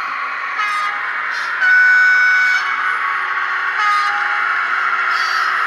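Siemens Vectron electric locomotive sound from an ESU LokSound DCC decoder, played through the model's small 22x13x7 speaker. It gives a steady running sound broken by horn blasts: a short blast about half a second in, a longer and louder one at around two seconds at a different pitch, and another short blast at about four seconds.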